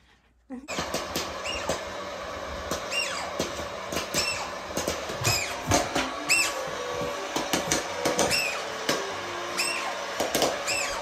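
Hot-air popcorn popper switched on about half a second in: a steady blowing from its fan and heater, with the kernels rattling and clicking in the chamber. Short high squeaks come through about every second or so.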